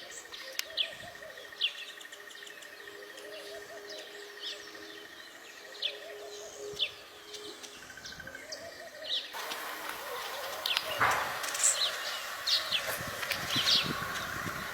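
Small birds chirping: many short, high chirps over a background hiss that steps up suddenly about nine seconds in, after which the chirping is denser and louder.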